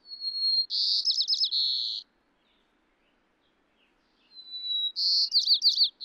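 White-crowned sparrow singing twice. Each song is a clear whistled note followed by a buzzy trill of quick falling notes. The low plane noise has been filtered out below about 2 kHz, leaving only a faint hiss underneath.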